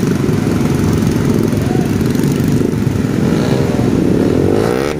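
Many small motorcycle engines running together in a dense pack, a continuous mass of engine noise. Now and then single engines rev up and down, most clearly in the second half.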